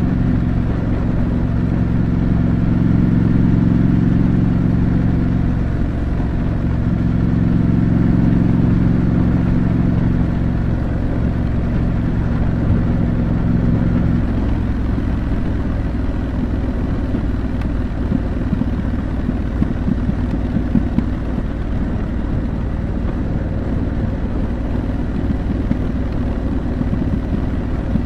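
2025 Triumph Scrambler 900's 900 cc parallel-twin with its stock exhaust, running under way and rising and falling a little in pitch. About halfway through the steady note drops away into a lower, rougher running sound, as when the throttle is closed, with a few sharp clicks.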